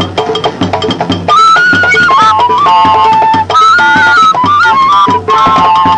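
Background music: a steady percussion beat, joined about a second in by a held melody line that steps between a few pitches.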